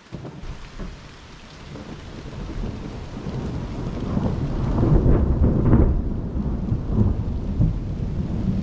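Rolling thunder rumbling in: it builds over the first few seconds, peaks about halfway through and keeps rumbling, with rain falling.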